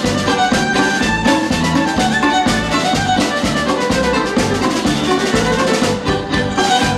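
A live folk-rock band playing an instrumental break. A fiddle leads over drums and guitar with a steady beat.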